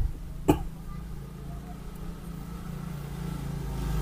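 A sharp click about half a second in, then the low hum of a motor vehicle's engine that grows steadily louder toward the end.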